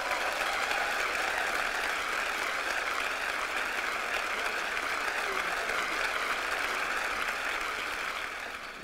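Large audience applauding steadily after a song, the clapping thinning slightly near the end.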